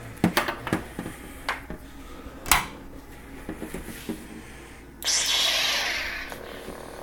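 A blade being fitted into a metal lightsaber hilt gives a run of sharp clicks and knocks. About five seconds in, the saber's sound board fires its ignition effect, a sudden loud hiss that fades into the steady buzzing idle hum.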